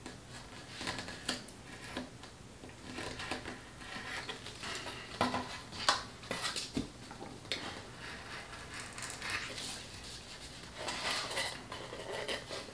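X-Acto craft knife trimming the edge of a stiff paper cutout on a cutting mat: irregular scratching and scraping strokes, with light rustling of the paper and small clicks.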